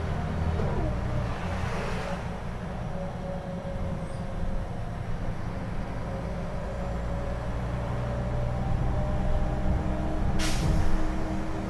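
Scania L94IB bus heard from the passenger cabin while under way: a low steady diesel drone with a faint whine that shifts in pitch as the bus changes speed. A short sharp hiss of air about ten seconds in, typical of the air brake system.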